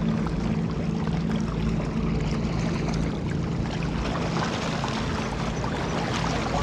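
A motorboat engine droning steadily across the lake, its hum weakening after about three seconds, over a steady rush of wind and water.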